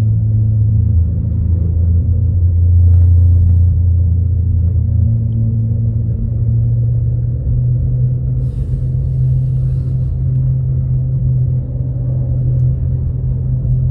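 Car tires running on the Mackinac Bridge's open steel grid deck, heard from inside the cabin: a loud, steady low drone that steps up in pitch about five seconds in.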